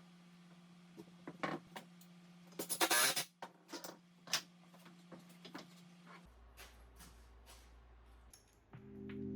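Scattered light clicks and knocks of hand work, with one short, loud scraping burst about three seconds in; music starts near the end.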